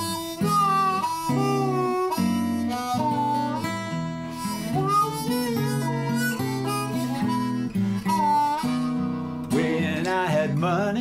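Blues harmonica solo over acoustic guitar accompaniment, the harmonica playing held and bent notes. Near the end a man's voice comes in.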